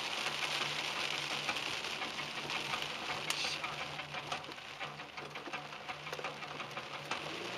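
Raindrops ticking on the car's windshield and roof, heard from inside the cabin, over a low steady hum.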